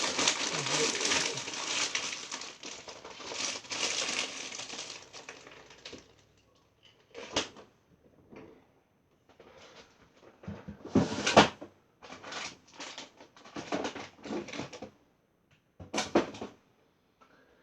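Packaging crinkling steadily for about six seconds, then separate knocks and short bursts of clatter as kitchen items and containers are handled.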